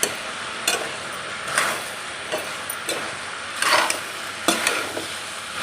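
Vegetables frying in a pan, sizzling steadily, while a spatula stirs and scrapes them about once a second. The vegetables are still cooking, not yet done.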